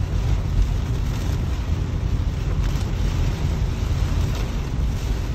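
Heavy rain on a moving car and tyres on the wet road, heard inside the cabin of a Toyota Prius as a loud, steady rush, with the windshield wipers sweeping across the glass.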